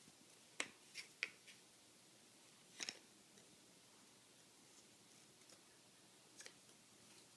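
Faint, scattered clicks of jigsaw puzzle pieces being handled and tapped on a surface, about five in all, with near silence between them.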